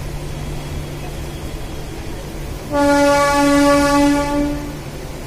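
Train horn sounding one long blast of about two seconds, starting about halfway through, over the steady running noise of a moving electric train.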